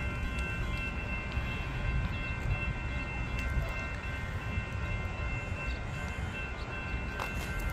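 Union Pacific manifest freight cars rolling past: a steady low rumble of wheels on rail, with a steady high whine held over it and a few faint clicks.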